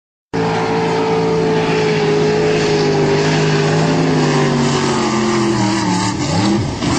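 Speedboat engine running flat out, a steady high-revving note over the hiss of spray and wind that slowly drops in pitch, then wavers up and down near the end.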